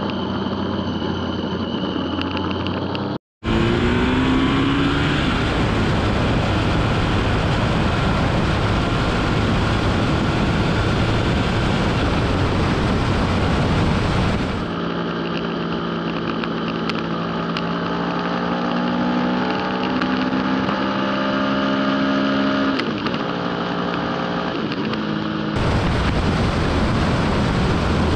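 Motorcycle being ridden at speed: engine running under heavy wind and road noise, its pitch rising steadily in places as it accelerates. The sound changes abruptly a few times, about 3, 15 and 25 seconds in.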